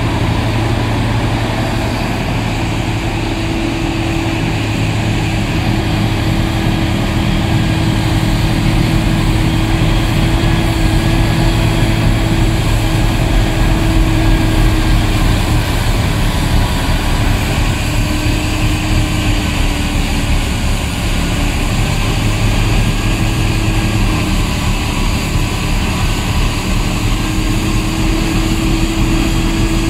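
Diesel engine of a Caterpillar wheel loader running hard to drive a Larue D60 loader-mounted snow blower that is blowing snow into a dump truck, with the truck's diesel running alongside. A steady low drone, with a higher hum that fades in and out.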